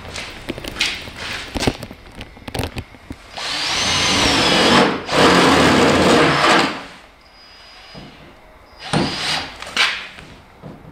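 Cordless drill boring into a car's door panel. After a few clicks of handling, it runs hard for about three seconds with a whine that climbs as the motor spins up. Two short bursts of drilling follow near the end.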